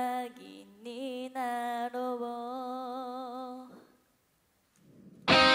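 A female voice singing solo a cappella, ending on a long held note with vibrato about two-thirds of the way through. After a second of silence the full band backing comes in loudly near the end.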